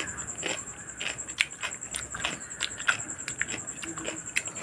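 Chewing crisp raw papaya slices: a string of irregular, crunchy little clicks.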